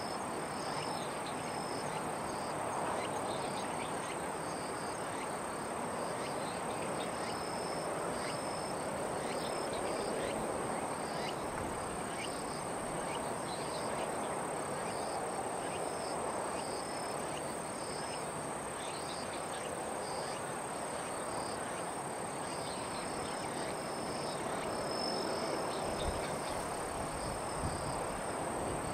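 Outdoor ambience: a steady high-pitched insect trill and short bird chirps repeating throughout, over an even background hiss.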